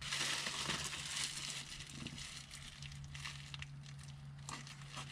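Crinkling and rustling handling noise from work on the bench, thickest in the first two seconds and then thinning to a few light clicks and ticks, over a faint steady hum.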